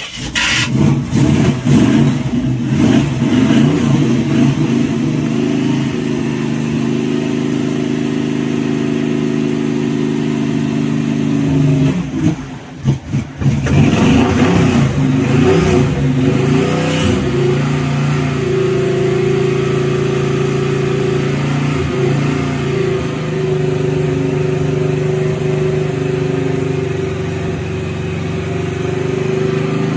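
1971 Chevrolet C10's cammed 305 V8 on a cold start: it catches and runs rough, its speed rising and falling. About twelve seconds in it stumbles and sputters, nearly dying, then picks back up and settles into a steady but uneven idle.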